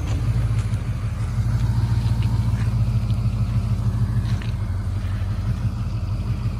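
Dual-rear-wheel pickup truck engine running steadily under load, a loud low rumble, as it tows a heavy container-home trailer at crawling speed.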